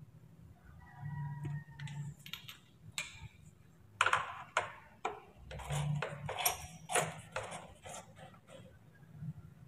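Screwdriver tip clicking and scraping on the screw of a small metal hose clamp as it is tightened, with light metallic clinks. The clicks come thick and fast over a few seconds in the middle, after a few faint clinks at the start.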